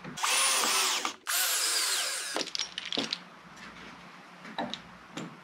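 Power drill driving pocket-hole screws into a wooden face frame joint: two runs of about a second each, the motor's pitch wavering and falling, followed by a few faint clicks.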